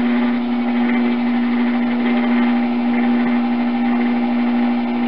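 Electric potter's wheel motor running with a steady hum at constant speed while clay is thrown.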